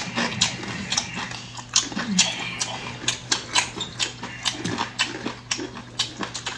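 Close-miked mouth sounds of someone eating chicken feet: wet chewing, smacking and sucking, with sharp clicks several times a second.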